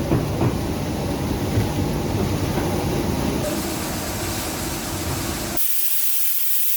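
Thermal-paper slitting machine running: a steady mechanical rumble and rustle of rollers turning and rotary knives slitting the paper web. About five and a half seconds in, the low rumble cuts off suddenly, leaving a steady high hiss.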